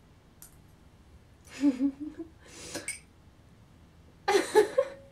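A boy's wordless reactions to a spoonful of strong-tasting sauce: a short groan about one and a half seconds in, a breathy exhale, then a louder, harsh, cough-like burst near the end.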